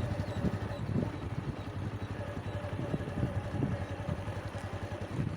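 A motor running steadily at low speed: a low rumble with a faint steady hum.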